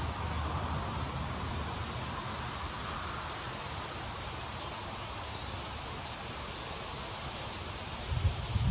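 Steady outdoor wind noise, an even hiss, with low gusts rumbling on the microphone near the end.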